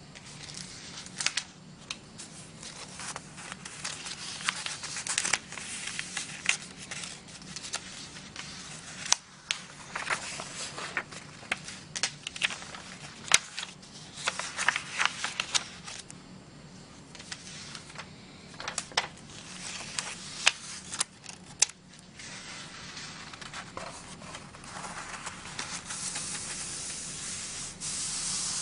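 Sheets of paper and cardstock being handled and leafed through, with sharp crackles and rustles as pages are lifted and flipped. In the last few seconds it turns to a steadier, growing rustle as hands rub and smooth a crinkled sheet of textured paper.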